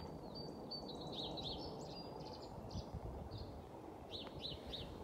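Songbirds chirping: a quick run of short, high, chirping notes in the first couple of seconds and another run of about four near the end, over a steady low background hiss.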